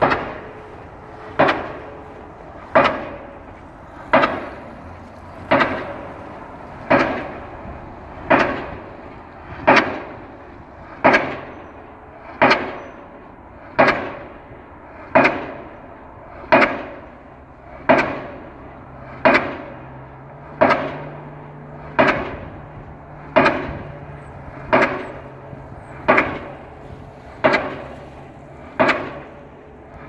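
Impact pile hammer on a crawler crane driving piles for a railroad bridge, striking at a steady pace about once every 1.4 seconds. Each blow is a sharp bang that rings off briefly.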